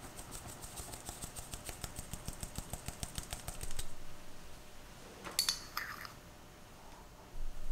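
Fine-mesh stainless steel sieve tapped to sift cocoa powder, making a quick even run of light rattling taps, about six or seven a second, for nearly four seconds. A little later, a few light clinks of a spoon against a small ceramic dish as a pinch of salt is scooped.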